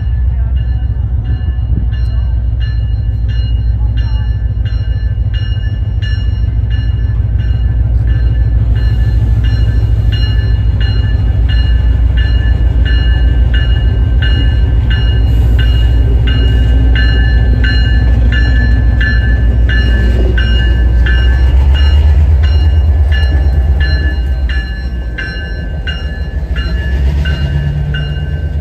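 EMD GP38 locomotive's 16-cylinder 645 diesel engine rumbling as it pulls a passenger train slowly past, with the locomotive bell ringing steadily about twice a second. The engine is loudest about 22 seconds in as the locomotive passes, then falls away as the coaches roll by.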